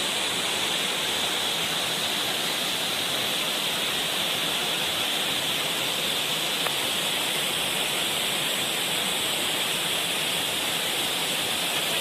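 Waterfall: a steady, even rush of water falling down a rocky gorge.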